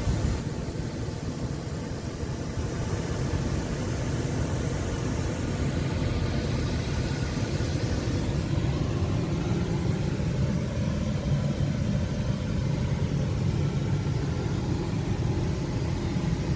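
A steady low mechanical rumble and hum, unchanging throughout.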